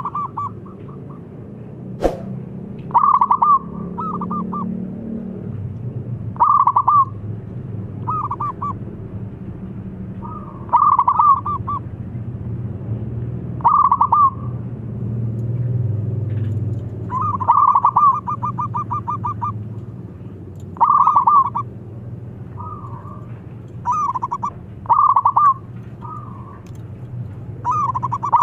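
Zebra dove (perkutut) cooing: about a dozen short phrases of rapid trilled coos, repeated every one to four seconds, with one longer run of coos around the middle. A single click about two seconds in, over a steady low background hum.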